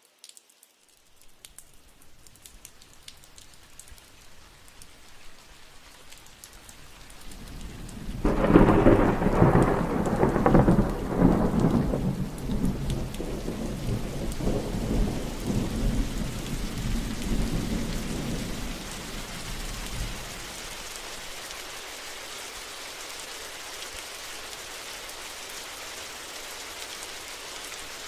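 Thunderstorm: rain falling steadily, building in the first seconds, with a thunderclap about eight seconds in that rumbles on in rolling waves for roughly twelve seconds before dying away, leaving the steady rain.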